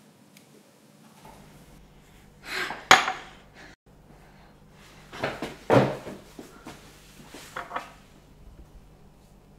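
A drinking glass and kitchen things handled on a granite countertop: two sharp knocks, about three and six seconds in, each just after a brief scrape, with a few softer clicks near the end.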